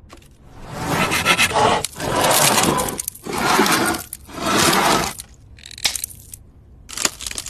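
Small hand saw cutting into a wooden pencil held in a vise: four slow back-and-forth strokes, each about a second long, then a short break with a single click, and quicker strokes starting again near the end.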